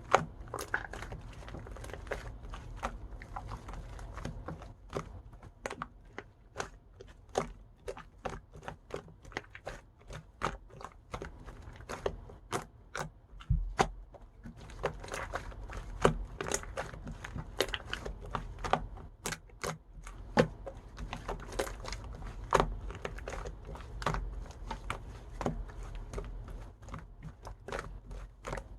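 Irregular crisp crunching and cracking, several sharp clicks a second, over a low rumble.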